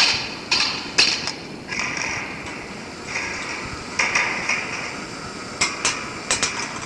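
Mechanical clicking and knocking: a loud sharp knock at the start, a few more in the first second and a half, and a quick cluster near the end. Short spells of hiss-like noise come in between.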